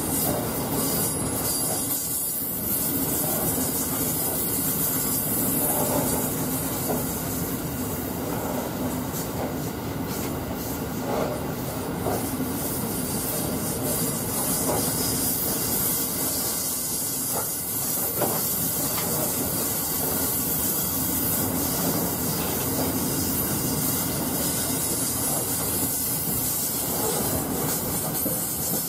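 Loaded narrow-gauge grain hopper wagons rolling steadily past, a continuous rumble and hiss of steel wheels on rail with a few faint clicks.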